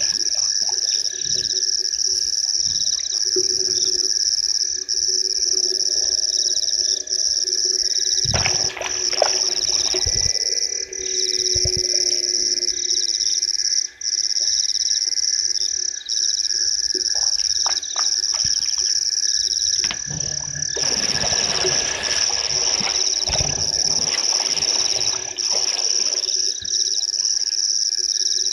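Nocturnal chorus of frogs and insects at a waterhole: a steady, high shrill with rhythmic pulsed calls repeating about once a second. There are two passages of louder, broader rustling noise, about eight seconds in and again around twenty-one seconds.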